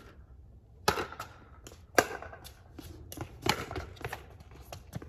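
Pickleball rally: hollow plastic ball knocked back and forth with solid paddles, sharp pops about a second apart, with lighter taps of the ball bouncing on the hard court and footsteps between them. The loudest hits come about one and two seconds in.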